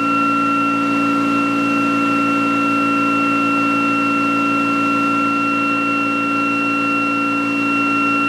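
ReGen-X generator test rig, spun by its prime mover, running under load while charging batteries: a steady whine made of several constant tones.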